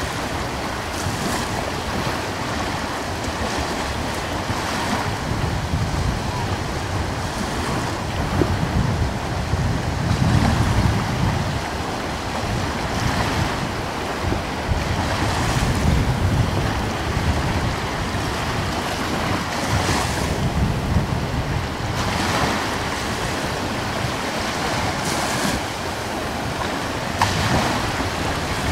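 Ocean surf: a continuous rush of waves that swells and eases every few seconds.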